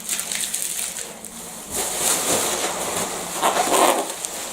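Packing material rustling and crinkling as it is handled and pulled apart, in uneven bursts that grow louder about two seconds in.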